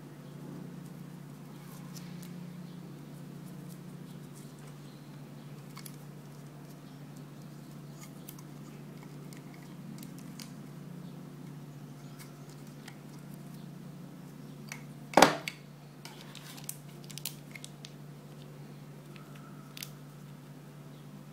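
Hands handling a plug charger and a small plastic-bagged part from a phone box, with faint scattered clicks and rustles over a steady low hum. One sharp, loud click about two-thirds of the way through, followed by a few lighter clicks.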